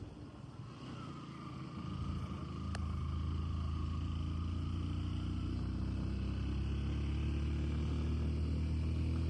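A vehicle's engine running steadily on the road, a low hum that grows louder about two seconds in and then holds even.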